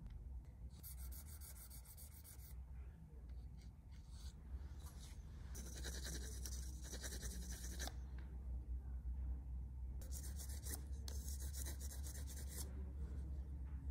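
Small brass parts being rubbed back and forth by hand on fine wet-and-dry abrasive paper, a hissy scratching in four spells of quick strokes. A steady low hum runs underneath.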